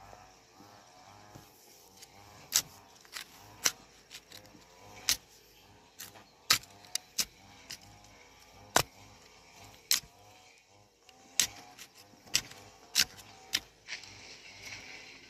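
A series of sharp knocks, about fifteen, at irregular spacing of roughly one a second, starting a couple of seconds in. Faint wavering calls run underneath.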